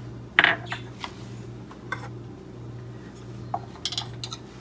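A few light clinks and taps of a utensil against a ceramic dish, the sharpest about half a second in, over a steady low hum.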